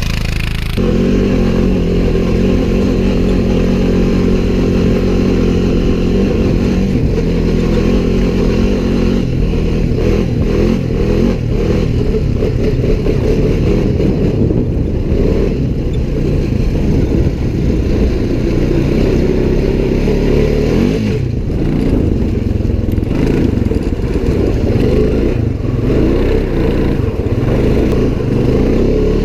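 Off-road vehicle engine running under way, its pitch wavering up and down as the throttle changes.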